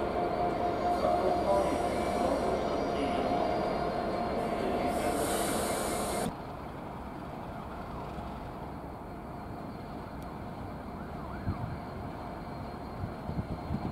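Class 57 diesel locomotive running slowly through a station, its engine sound overlaid by a steady high squeal from the wheels. It cuts off abruptly about six seconds in, giving way to the quieter, steady low rumble of Class 66 and Class 67 diesel locomotives moving slowly, with a few low thumps near the end.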